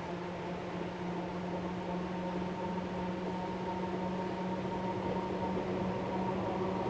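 Historic tram car approaching slowly on street track, with a steady hum growing gradually louder as it nears.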